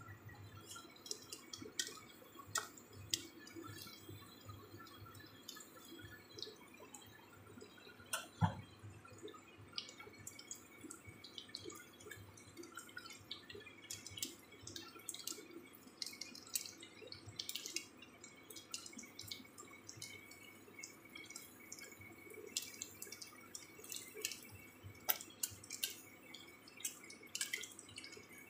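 Egg-battered pieces of jenang frying in oil in a wok: a soft sizzle with scattered crackling pops of spitting oil over a low steady hum. There is one louder knock about eight seconds in.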